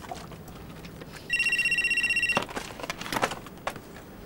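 Phone ringing: one electronic ring with a fast trill, about a second long, starting a little over a second in, followed by a few clicks and rustles.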